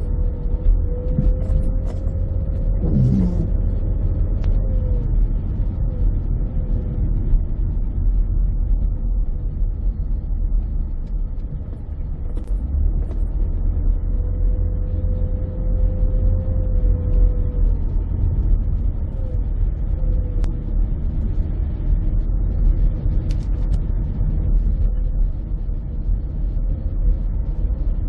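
Car being driven on a rain-wet road: a steady deep rumble of engine and tyre noise, with scattered clicks and a thin wavering whine that comes and goes.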